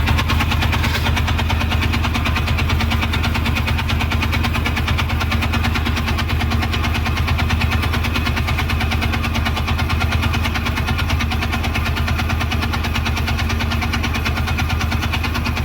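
Mahindra pickup's BS6 diesel engine idling steadily, with a fast, even pulse and no revving.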